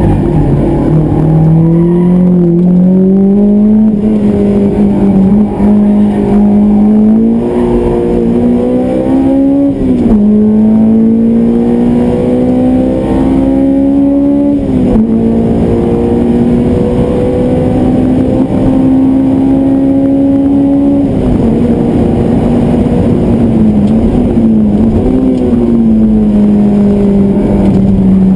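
Honda S2000's four-cylinder VTEC engine at full throttle, heard from inside the cabin through an aftermarket Skat and N1 exhaust. The revs climb to over 8,000 rpm, with sharp drops at upshifts about ten and fifteen seconds in, then fall back as the car slows for a corner.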